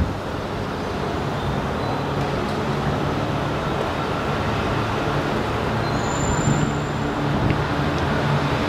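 Steady rumble of electric commuter trains running, with a low hum that grows from about halfway as a train approaches. A brief thin high tone sounds about six seconds in.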